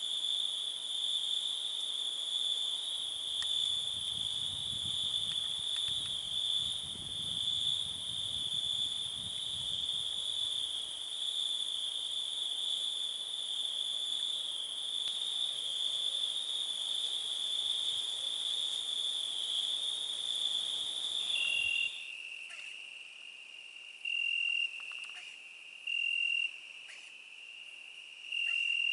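Crickets trilling in one steady, continuous high chorus. About three-quarters of the way through, the sound cuts abruptly to a quieter bed in which a lower-pitched trill comes in short bursts every couple of seconds.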